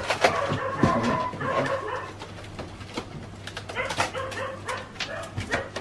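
Dogs whining and barking, with scattered clicks and knocks as a box is handled.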